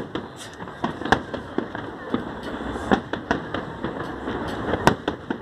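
Fireworks display: a rapid, irregular series of bangs and crackles, about a dozen over a few seconds, with the loudest about a second in and near the end.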